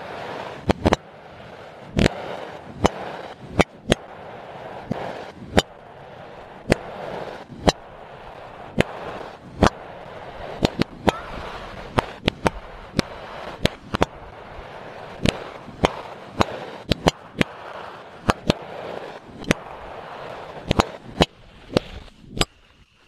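Fireworks going off: sharp bangs at irregular intervals, about two a second, over a continuous crackling hiss.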